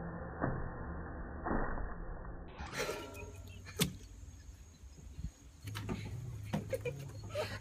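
Rubber bands snapping onto a watermelon: a few separate sharp snaps, several seconds apart, the loudest about four seconds in.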